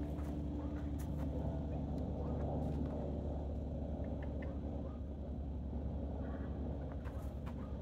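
A steady low rumbling hum from an unseen engine or machine, with a few faint clicks in the first few seconds that fit a horse's hoof steps on concrete as she walks up and stops.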